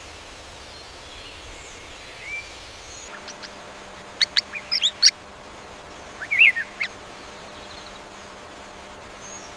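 Wild birds calling: a quick run of sharp chirps about four seconds in, then a short cluster of calls about two seconds later, over a steady background hiss.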